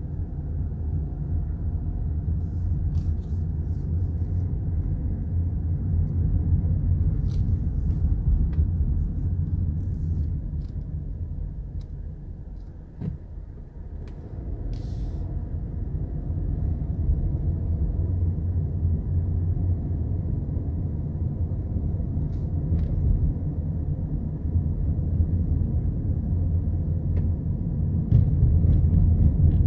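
Low, steady rumble of a car's engine and tyres heard from inside the cabin while driving slowly. It eases off for a couple of seconds about halfway through, where there is a single click, then builds back up.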